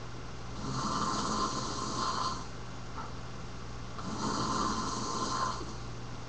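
A person snoring in their sleep: two long snores about three and a half seconds apart, each lasting about a second and a half.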